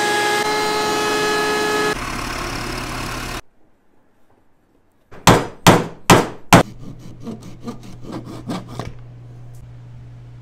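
A benchtop thickness planer running as a walnut board feeds through, for about three seconds. After a short pause come four sharp hammer blows driving a glued dowel into walnut, followed by a run of quicker, lighter taps.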